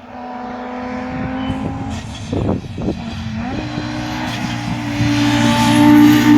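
Audi quattro five-cylinder engine running at steady revs. A short rough burst comes about two and a half seconds in, then the revs step up and it gets louder near the end.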